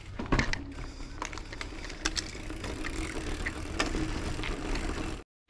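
Mountain bike rolling over paving stones: a steady tyre rumble with scattered clicks and rattles from the bike. It cuts off suddenly near the end.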